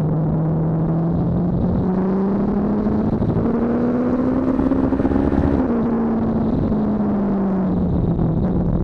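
BMW S1000RR inline-four engine under hard acceleration, its pitch rising steadily as the bike gathers speed. About five and a half seconds in the throttle closes and the revs fall away as the bike slows for the next corner.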